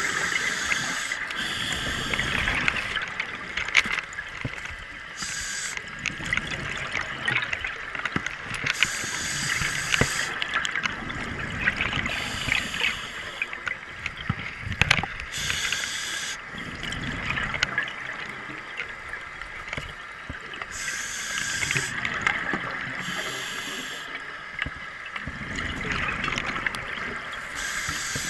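Underwater scuba breathing through a regulator: a hissing inhale and a rush of exhaled bubbles that recur every three to four seconds, over a steady background hiss.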